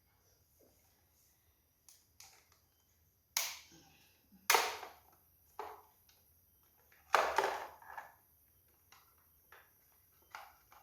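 A series of sharp clicks and knocks from tools and hardware being handled during electrical work. There are three louder knocks, a little over three seconds in, about four and a half seconds in, and about seven seconds in, with lighter clicks between them.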